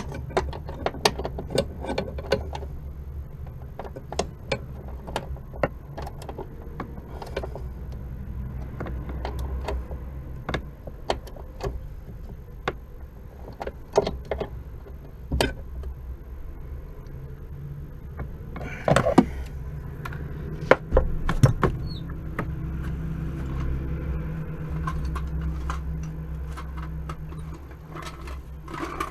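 Irregular metallic clicks, clinks and clunks of hand tools and metal parts being worked on, over a steady low hum, with a louder scraping burst about two-thirds of the way through.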